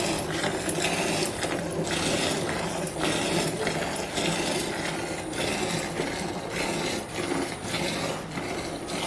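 A buffalo being milked by hand: short squirts of milk hissing out in a steady rhythm, about two a second.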